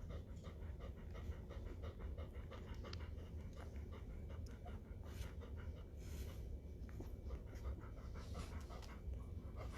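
Great Pyrenees mother dog panting steadily in quick, soft, even breaths.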